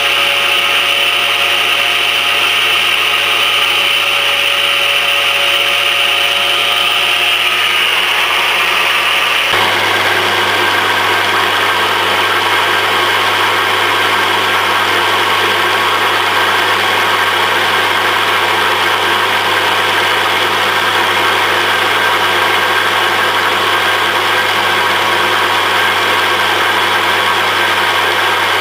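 Motor-driven steel shaft in pillow-block bearings, spinning steadily. At first it runs with a steady whine; about ten seconds in this gives way suddenly to a rougher, noisier running sound that holds to the end.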